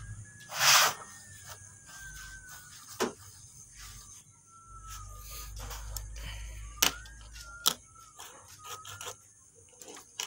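Light scraping and ticking of a metal head gasket being handled and worked loose on a bare engine block, with a short rasping scrape just under a second in and a few sharp metallic ticks later on.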